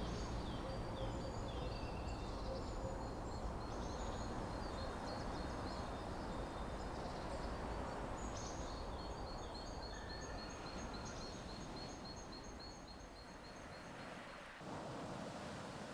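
Small birds singing over a steady outdoor background hiss, with short high chirps. About halfway in, one bird repeats a quick high note about three times a second for several seconds.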